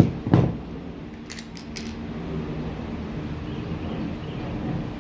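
Hand tools and small wire parts being handled during wire stripping and crimp-terminal fitting: a dull thump or two, then four quick sharp clicks about a second and a half in. A steady low hum runs underneath.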